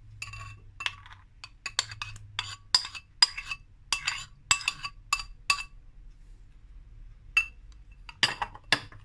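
Glass mixing bowl clinking as a metal spoon taps against its rim to knock yogurt off into the batter. About a dozen quick ringing clinks in the first half, then one more and a final pair near the end.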